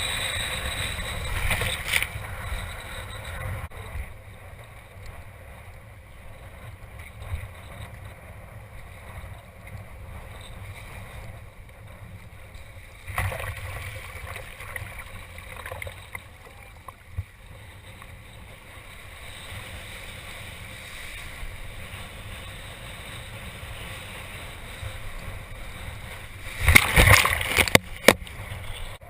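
Strong wind buffeting the microphone over water rushing and splashing around a kitesurf board. There are louder splashes a couple of seconds in, about halfway, and a bigger burst of splashing near the end.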